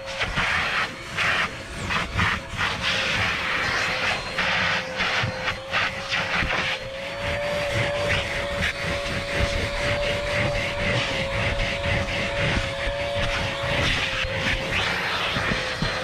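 Vacuum cleaner running on car interior carpet: a steady motor whine over rushing suction air, broken by irregular scratchy knocks as the nozzle works the carpet. The whine rises slightly from about seven seconds in and drops back near the end.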